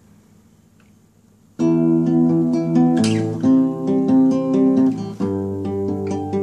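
Acoustic guitar starting up about a second and a half in, picking and strumming chords as the song's introduction.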